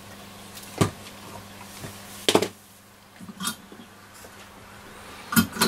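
Sharp knocks of hand tools being handled on a workbench as a flux pen is put down and a soldering iron taken up: three clear knocks, about a second in, in the middle and near the end, with a softer one between them, over a steady low hum.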